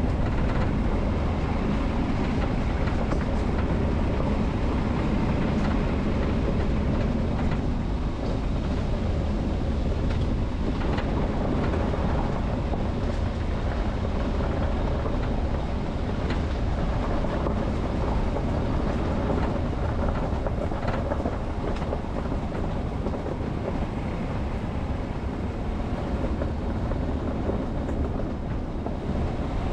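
Steady low rumble of a vehicle driving, tyre and road noise over a running engine, with scattered faint clicks and rattles.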